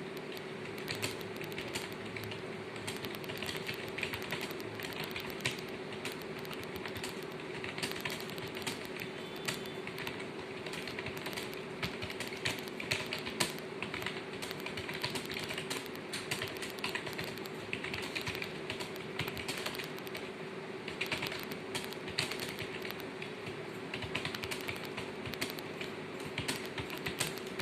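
Fast, continuous typing on computer keyboards: dense, irregular key clicks, over a steady low hum.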